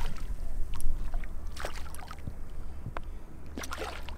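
A hooked shark splashes at the surface a few times, the biggest splash about a second in, over a steady low rumble of wind on the microphone.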